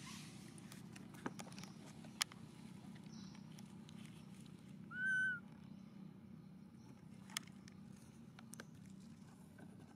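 An animal's single short whistled call, rising then falling, about five seconds in. A few sharp clicks come before and after it, over a faint steady low hum.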